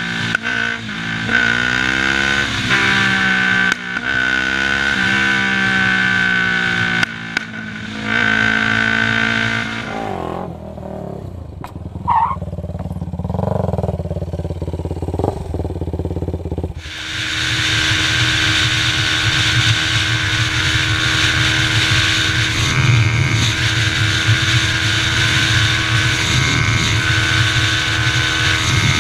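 Single-cylinder sport quad engine revving hard while riding, its pitch climbing and dropping again and again through the gear changes. A quieter stretch of a quad revving follows, then a steady, loud engine drone at speed.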